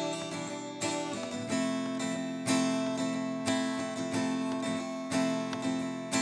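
Background music: an acoustic guitar strumming chords, struck about twice a second, with a change of chord about a second in.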